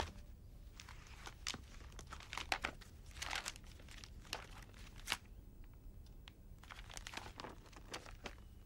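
Pages of a magazine being handled and turned, paper rustling and crinkling in short irregular bursts with a few sharper crackles.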